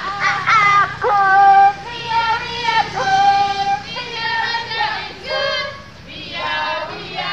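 A woman's voice singing a melody, with several notes held for about a second.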